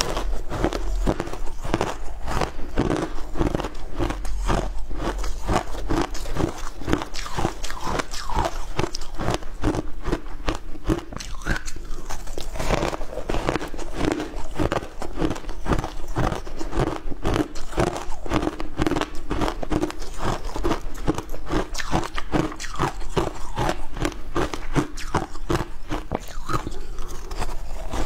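Shaved ice being bitten and chewed, a continuous run of sharp crunches several a second.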